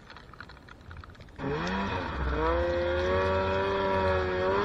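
Snowmobile engine revving up sharply about a second and a half in after a quieter start, then held at high revs as the sled plows through deep powder snow.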